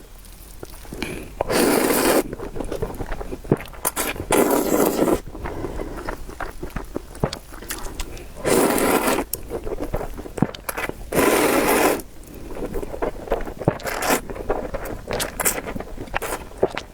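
Noodles being slurped up in four long, loud sucks, with chewing clicks and mouth smacks in between.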